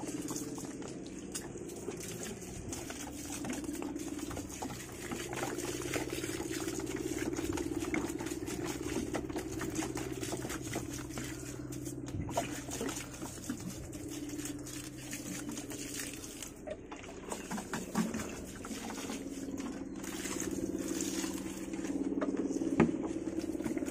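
Water poured from a hand-held vessel onto potted plants, splashing and pattering on leaves and soil, over a steady low hum. A single sharp knock near the end.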